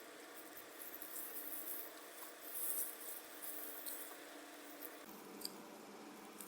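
Faint rustling and a few small clicks of handling, loudest about two and a half seconds in.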